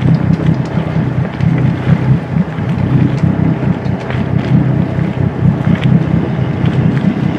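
Wind buffeting the microphone on the deck of a gaff-rigged schooner under sail: a low rumble that swells and falls unevenly, with a few faint ticks from the boat.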